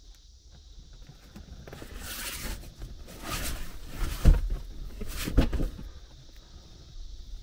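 Handling noise: rustling and rubbing in four bursts with dull thumps under them, the loudest about halfway through, as the camera is moved about the boat cabin and a hand brushes the vinyl seat cushion.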